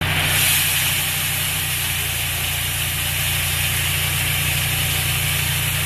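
Isuzu tipper truck's engine running steadily to power the hydraulic hoist as the bed tips up, with a steady hiss of fine gravel pouring out of the back.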